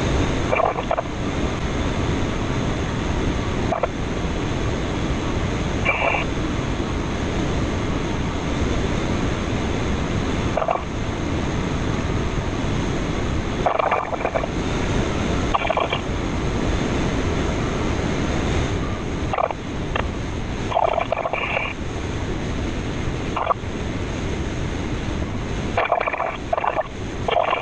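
Steady wind noise in the cockpit of a K13 glider in flight, with short chirps every few seconds.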